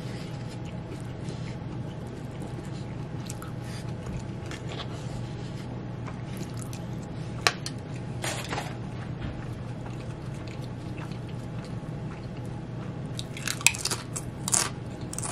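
Close-miked chewing of a mouthful of Chipotle burrito bowl, with soft wet mouth sounds and scattered crisp clicks, a cluster of them near the end, over a steady low hum.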